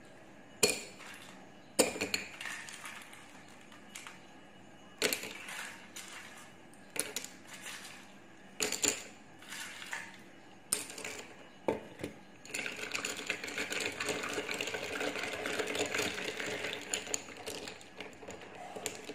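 Ice cubes dropped one by one into a cup of iced coffee, each landing with a sharp clink. In the last several seconds a long spoon stirs the ice in the cup in a steady rattle of clinks.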